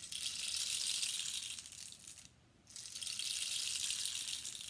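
Rain stick made from a dried cactus stem, tipped so the filling inside trickles down over the thorns pushed into the hollow, giving a rain-like hiss. The hiss stops for about half a second about two seconds in, then runs again and slowly fades.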